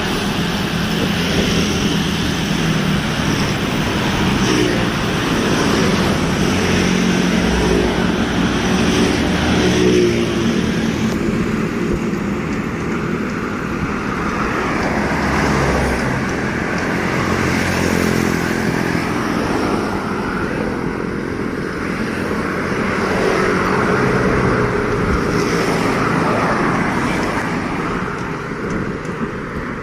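Road traffic: motor vehicle engines running past in a steady stream of noise, with the pitch of passing engines rising and falling.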